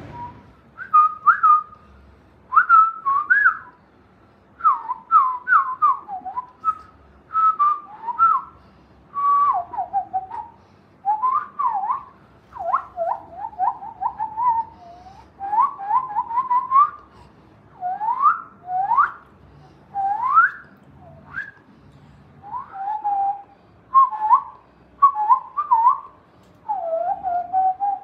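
Recorded birdsong played back: short whistled chirps and quick rising and falling glides, in bursts about every second with brief gaps between them.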